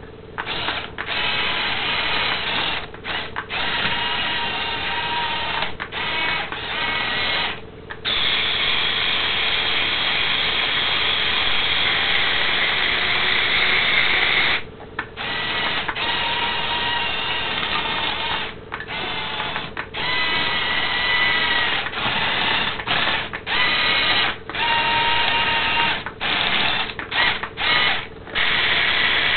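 Small electric gear motors of a 1/50 scale radio-controlled Komatsu 575A bulldozer model whining as it drives and works. The whine stops and restarts over and over with short pauses, its pitch shifting between runs.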